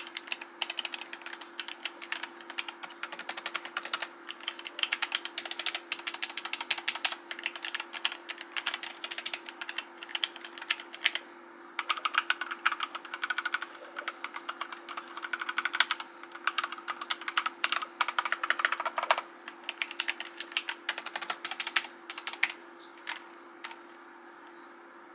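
Fast typing on a mechanical keyboard: a dense run of key clicks that stops near the end, over a faint steady hum.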